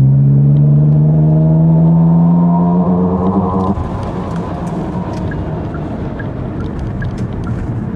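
Genesis GV60's synthetic 'G-Engine' drive sound, a virtual engine note played through the cabin speakers, rising steadily in pitch under full-throttle acceleration in sport mode. A little over halfway through it cuts off suddenly, leaving tyre and road noise.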